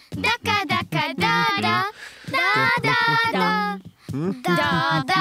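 Young children's voices singing a short playful song, in several held phrases with brief pauses between them.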